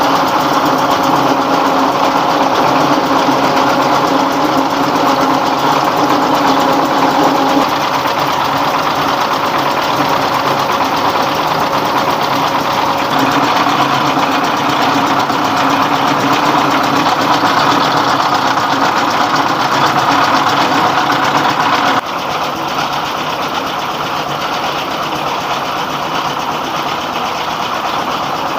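Rice hulling machine running steadily under load, driven by a 24 hp Dongfeng-type ('dompeng') diesel engine, a loud continuous mechanical din. The level drops slightly and abruptly about 22 seconds in.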